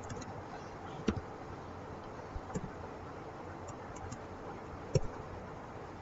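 Computer keyboard keystrokes: a handful of separate, unhurried clicks spaced irregularly, over a steady low background hum.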